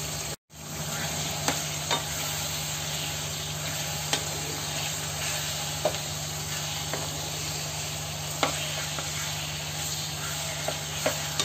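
Chicken pieces sizzling steadily in hot oil in a nonstick wok, with soy sauce and vinegar in the pan, while a wooden spatula stirs and turns them, giving a few light knocks and scrapes. The sound drops out for an instant about half a second in.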